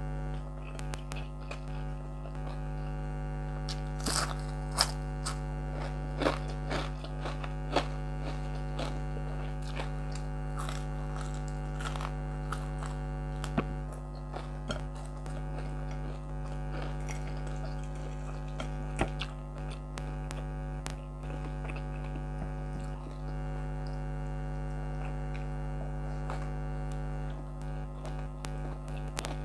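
Air conditioner running with a steady hum of several held tones. Over it come scattered short clicks and smacks of chewing and eating by hand, most frequent between about four and eight seconds in.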